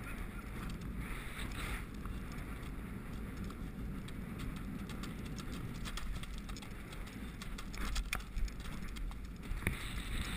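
A horse cantering across turf, its hoofbeats and rattling tack coming through steady wind noise on a rider-mounted camera. A few louder knocks and thuds come about eight seconds in as it jumps a log fence and lands.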